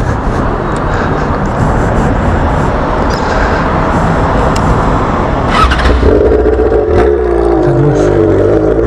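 Yamaha XJ6's inline-four engine running loud through a straight-pipe exhaust with no muffler, the motorcycle under way. About six seconds in the rough, noisy sound settles into a steadier, even engine note.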